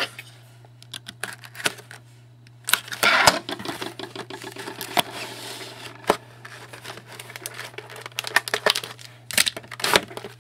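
Trading-card packaging being handled and opened: a string of clicks and crinkling, with a longer tearing rasp about three seconds in, over a steady low hum.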